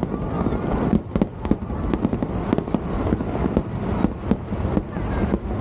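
Fireworks display: a rapid, irregular string of sharp bangs over a continuous low rumble of further explosions.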